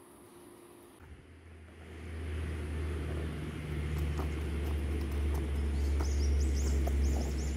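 Low rumble of wind buffeting the microphone outdoors, with faint scattered ticks and a run of short high chirps in the second half.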